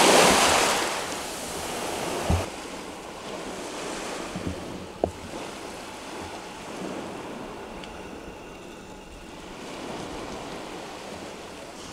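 Small sea waves washing on the shore, loudest in the first second and then a steady quieter wash, with wind on the microphone. A few short knocks sound along the way.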